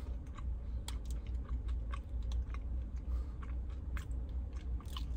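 A person chewing a hard, crunchy protein bar with crisped rice pieces, giving many irregular short crunches. A low steady hum runs underneath.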